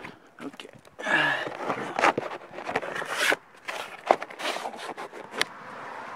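Stiff black roofing sheet being handled and pushed into place against the roof trim: irregular rustling, scraping and short knocks.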